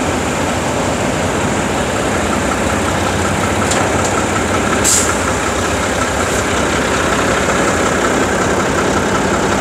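Concrete mixer truck's diesel engine running steadily at idle. A few brief high hisses or clicks come through around the middle, the strongest about five seconds in.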